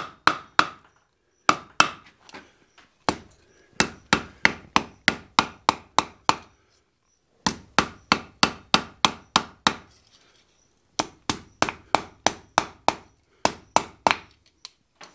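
Hand hammer striking a red-hot steel bar on an anvil while rounding the ball end of a forged rope cleat. Runs of quick sharp blows, about three to four a second, are broken by a few short pauses.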